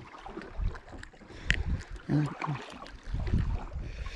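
Water slapping against a small boat's hull, with gusts of wind on the microphone and a sharp knock about a second and a half in.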